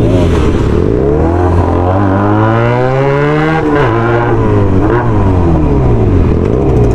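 Several motorcycle engines revving at once, their pitches rising and falling and crossing one another. One climbs steadily and then drops sharply about three and a half seconds in.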